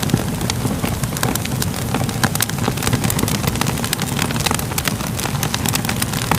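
Crackling fire ambience: a steady low rumble with frequent, irregular sharp pops and crackles.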